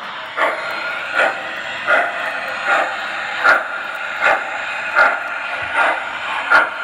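O gauge model steam locomotive's sound system chuffing at an even, unhurried beat, about one chuff every 0.8 seconds, over the steady running noise of the train on the track.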